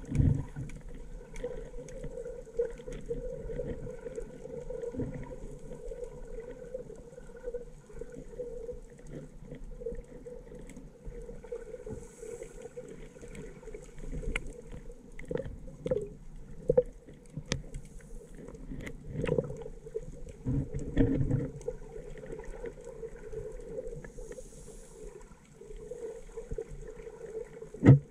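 Muffled underwater sound picked up by a submerged camera while snorkelling: a steady low hum with irregular thumps and knocks from water moving against the camera, and scattered sharp clicks.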